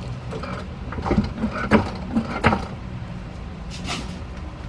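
A few sharp clicks and clunks in quick succession, about a second in, from a jack raising the engine so the mount can seat, over a steady low hum.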